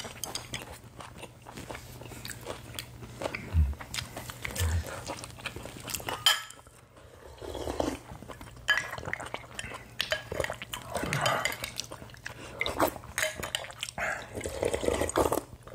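Close-miked eating: chewing and sipping soup broth, with wooden spoons and chopsticks clicking and clinking against ceramic bowls, and a couple of dull knocks about four seconds in.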